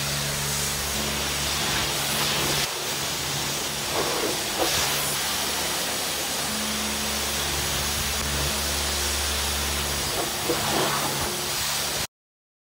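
High-pressure washer lance spraying water onto a car's bodywork and windscreen: a steady hiss over a low steady hum. It cuts off suddenly near the end.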